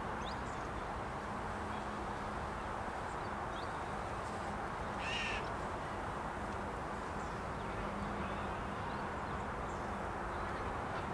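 Outdoor background: a steady low rush, with a few faint bird chirps and one louder bird call about five seconds in.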